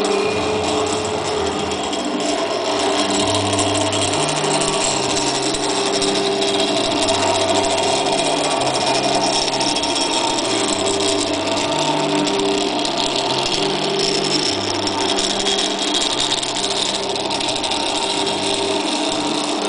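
Stepper motors driving the axes of a Morgon MD-31B milling machine through pulleys and belts on a first test run. They give a low hum that jumps between a few steady pitches every second or so as the motors change speed, over a constant hiss.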